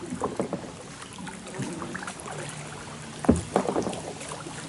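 Kayak paddles dipping and splashing in slow river water, in irregular strokes, with one sharp thump a little over three seconds in.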